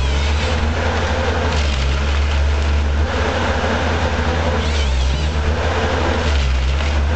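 Diesel engine of a Logset 8H forestry harvester running steadily, with its hydraulics at work while the boom and harvester head handle a log. Its pitch and load shift slightly a few times.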